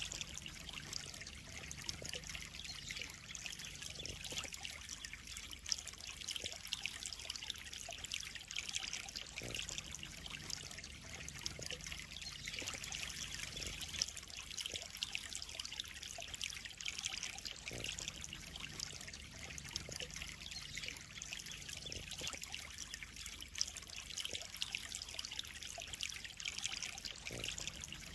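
Water in a koi pond trickling steadily, an even splashing rush with many small flickers and no let-up.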